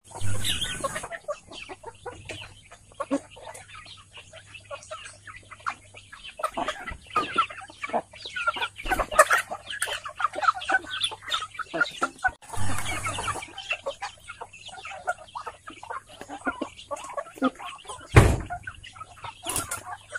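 A flock of kampung chickens clucking and calling on and off while they peck at feed. Two brief rustles come near the start and about halfway, and a sharp knock about 18 seconds in is the loudest sound.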